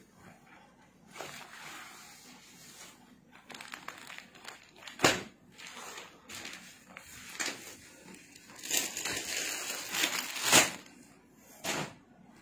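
Clear plastic packaging rustling and crinkling as packaged clothing suits are handled, with two sharp, louder crackles, about five seconds in and about ten seconds in.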